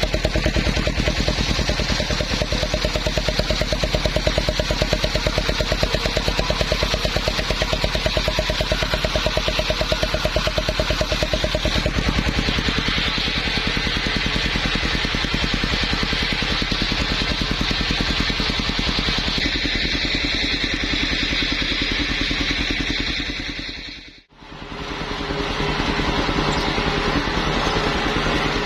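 Engine-driven circular saw running steadily on teak timber: a fast, even engine beat under the rasp of the blade. The sound drops out briefly about three-quarters of the way through, then comes back.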